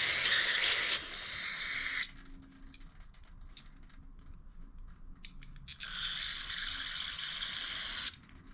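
Pressurised spray hissing into a dirty Briggs & Stratton 500E mower carburetor as it is cleaned out. One spell ends about two seconds in and another runs from about six to eight seconds in, with light clicks and taps of the carburetor parts being handled between them.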